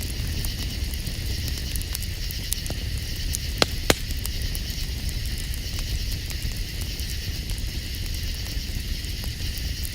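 Campfire crackling with scattered small pops and two louder snaps about three and a half and four seconds in, over a steady high-pitched background chorus.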